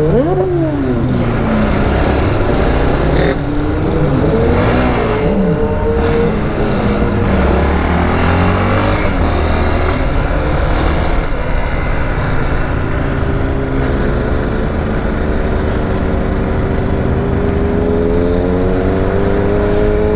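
Motorcycle engine heard from the rider's seat at road speed, with wind rushing over the microphone. The revs rise and drop a few times with gear changes in the first half, then climb slowly and steadily as the bike accelerates.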